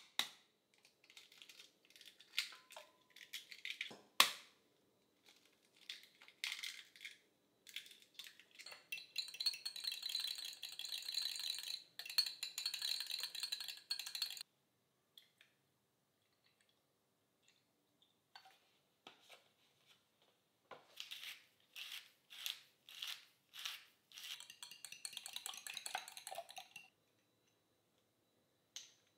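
Eggs tapped and cracked against a glass measuring beaker, one sharp crack loudest about four seconds in, then beaten briskly in the glass with a small whisk: a fast run of clicking lasting about six seconds. After a short pause, a second run of lighter clinks and taps of utensils on glass.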